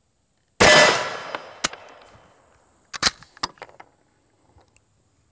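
A single shot from an M1 carbine in .30 Carbine, with a long ringing decay, followed about two and a half seconds later by a few sharp metallic clacks as the carbine's action is worked by hand: the rifle failing to cycle, with a stuck case, on Aguila ammunition.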